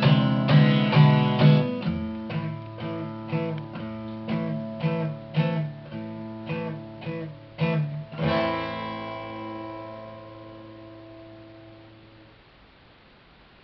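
Solo steel-string acoustic guitar strumming the closing chords of a song, about two strums a second and growing quieter, then a final chord about eight seconds in that rings out and fades away.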